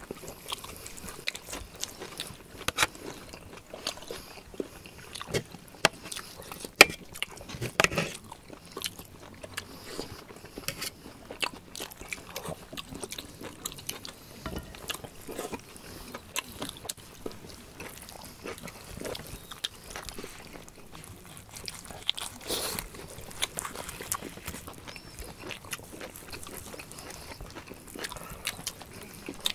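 Close-up eating sounds of boiled organ meats: chewing and biting, with knives cutting and clicking against a metal platter in scattered, irregular clicks.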